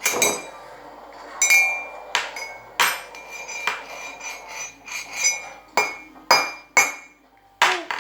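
A metal spoon banged by a small child on a table and mugs: about a dozen sharp, irregular knocks, several ringing as clinks.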